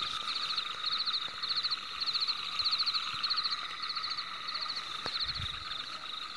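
Night-time animal chorus of insects and frogs: a high, rapid pulsed call repeating in short trains two or three times a second over a steady high-pitched drone, growing fainter in the second half.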